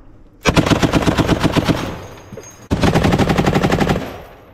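Belt-fed machine gun mounted in a vehicle turret firing two bursts of automatic fire, each about one and a half seconds long, with a short pause between them.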